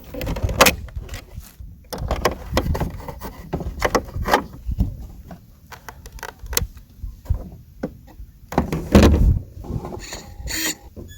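Irregular knocks, clicks and rustling from handling a radio-controlled boat as it is readied to be powered up, with no motor running.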